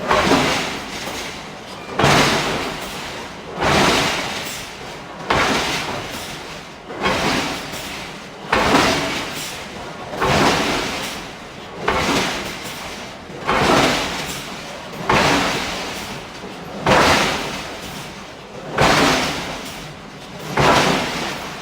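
Giant hydraulic forging hammer striking steel in a steady rhythm, one heavy blow about every one and three-quarter seconds, each ringing and dying away before the next.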